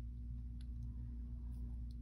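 Two faint clicks, a little over a second apart, over a steady low hum.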